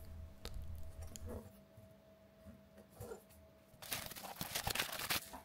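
Faint handling sounds, then nearly four seconds in a soft crackling rustle with many small clicks as plastic bubble wrap is lifted out of a cardboard box.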